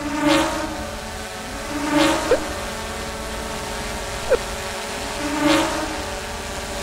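Quadcopter drone propeller hum, a steady buzzing whir that swells into a whoosh every couple of seconds as it passes. Two short rising chirps come about two and four seconds in.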